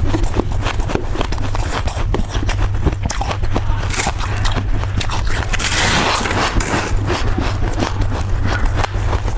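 Soft freezer frost crunching, close-miked, as it is bitten, chewed and squeezed in the hand: a dense, irregular run of crisp crunches and crackles, with a steady low hum underneath. There is a brief louder rush of crunching about six seconds in.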